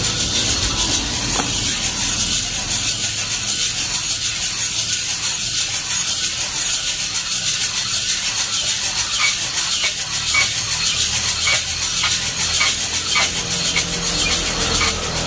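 Coffee beans tumbling and rasping inside a hand-cranked mesh drum roaster as it is turned over a gas burner, with a steady hiss throughout. A run of light clicks comes in the second half.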